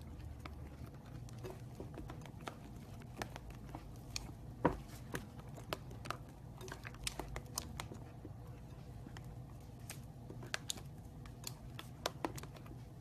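Homemade slime being handled, giving off irregular small sticky clicks and pops, busiest in the middle seconds, over a faint steady low hum.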